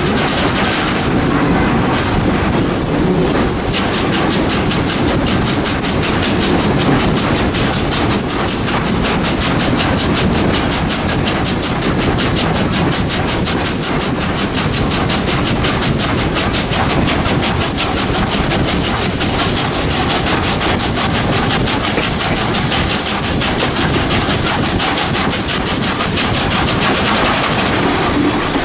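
Steam locomotive 621, a 4-6-2, working hard up a steep 1-in-45 grade: a loud, steady stream of rapid exhaust beats from the stack.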